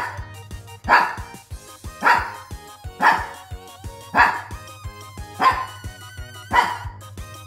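A Shih Tzu barking steadily, about one bark a second, over background music.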